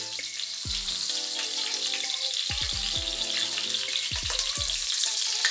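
Food frying in hot oil in a pot on a low gas flame: a steady sizzle.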